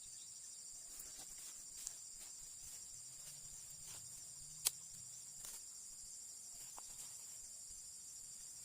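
Steady high-pitched chorus of crickets or similar insects, with a few faint ticks and one sharp click a little past halfway.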